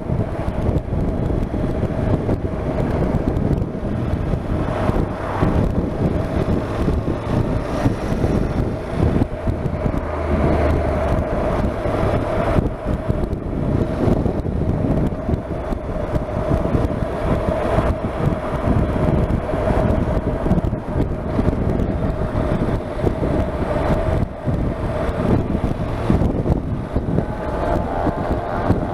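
Honda NC750X parallel-twin motorcycle riding along, its engine running under a steady hum with heavy wind buffeting on an on-board microphone that has slipped down.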